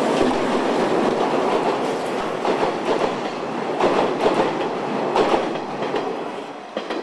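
An 8620-class steam locomotive and its 50-series passenger coaches running past close by: a dense rushing clatter, with the coach wheels clacking over the rail joints. It fades near the end as the last coach goes by.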